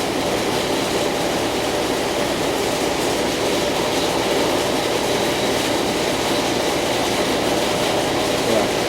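Steady mechanical noise, even and unchanging, like a running machine or fan.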